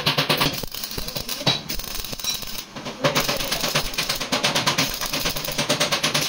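Rapid tapping, many strokes a second, in runs broken by two short pauses.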